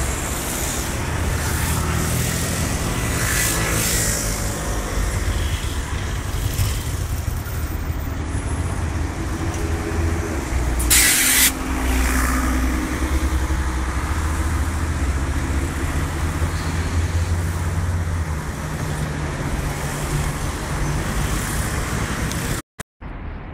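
Heavy engine running at a steady low hum, its note changing a little about three-quarters of the way through, with one short sharp hiss about eleven seconds in.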